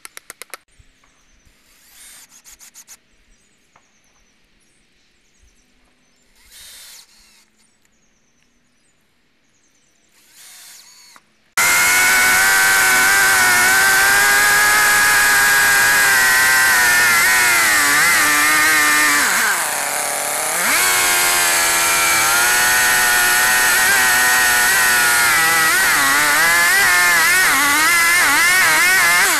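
Quiet at first, with a few faint, brief scrapes of a chisel on wood. About twelve seconds in, a Stihl chainsaw comes in suddenly at high revs, cutting through a thick red oak slab; its revs sag briefly about two-thirds of the way through, then climb again.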